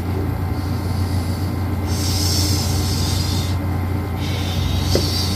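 Steady low mechanical hum, with a soft hiss from about two seconds in that stops a second and a half later.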